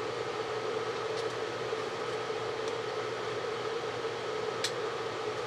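Steady background machine hum with a light hiss, of the kind a small fan makes, with two faint clicks, one about a second in and one near the end, as the small soldering iron's parts are handled.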